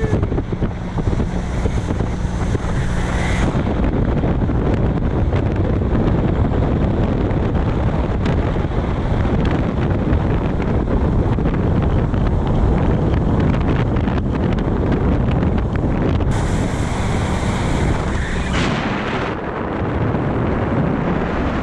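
Outboard motor running steadily as an aluminium fishing boat cruises, with wind buffeting the microphone and water rushing along the hull.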